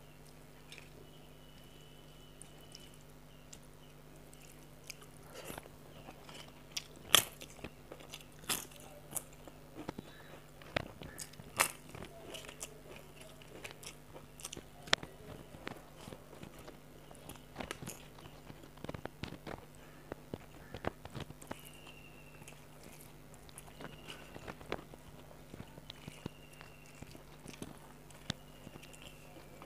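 Close-up chewing with scattered sharp crunches, starting a few seconds in: crisp fried papad (poppadom) being eaten with rice and dal.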